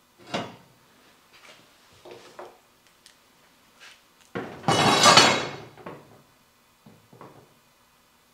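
Steel bar stock being handled on an angle-iron frame: a sharp clank about half a second in, a few light knocks and taps, then the loudest sound, a scrape lasting about a second and a half as a bar slides across the frame, and two small knocks near the end.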